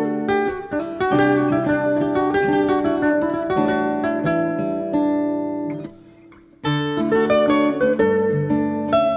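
Background music: acoustic guitar picking a melody. It fades out briefly about six seconds in and then starts again.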